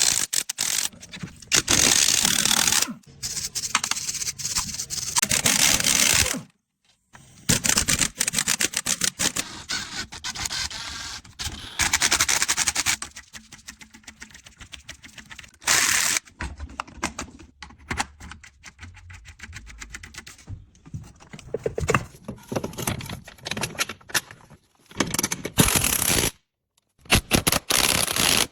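Rapid, irregular knocking and clicking from a vehicle's front axle, a sign of a fault in the axle. The sound comes in several stretches, broken by two abrupt cuts to silence.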